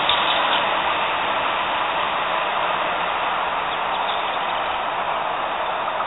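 Steady rushing noise of a light-rail tram-train rolling away over the tracks, slowly fading, with no distinct clanks or horn.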